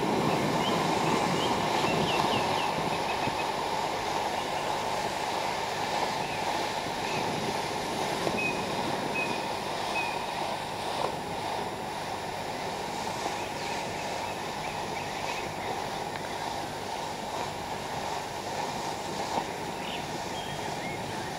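Ultimate Pyro Strange ground firework burning with a steady rushing hiss as it pours out smoke, slowly fading as it burns down.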